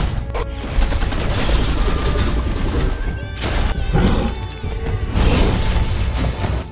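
Dramatic soundtrack music with a heavy bass, cut by several loud crash and impact effects. It cuts off abruptly near the end.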